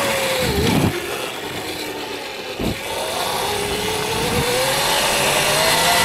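Electric dirt bike's motor whining. Its pitch falls and fades in the first second, then rises again from about three seconds in as the bike speeds up. Two sharp knocks come about one and three seconds in.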